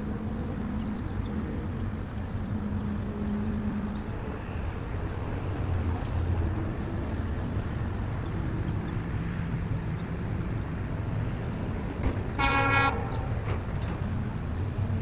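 WDP4 diesel locomotive running steadily as it approaches, its engine a low steady drone, with one short horn blast near the end.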